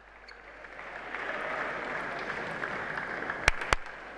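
Arena crowd applauding the end of a table tennis point. The applause builds over the first second and then holds steady. Near the end come two sharp clicks of a table tennis ball bouncing.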